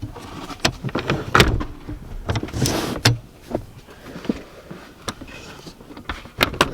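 Recaro bucket seat being slid forward on its seat rails: a series of clicks and knocks from the rails and their latch, with a short sliding rasp about two and a half seconds in.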